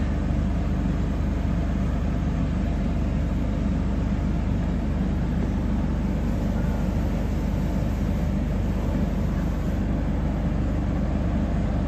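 Shoe-repair finishing machine running steadily, its motor and spinning polishing brushes buffing a shoe to a shine.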